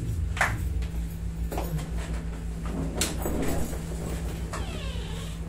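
Shuffling and creaking as a person climbs onto a padded vinyl massage table and lies back on it, with a sharp knock about three seconds in and a short squeak of the cushion near the end.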